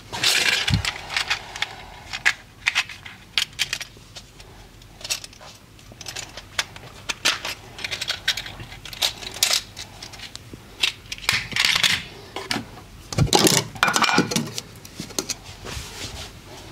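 Irregular run of sharp, close-up clicks and taps mixed with short scraping rustles, with clinking, metallic-sounding accents.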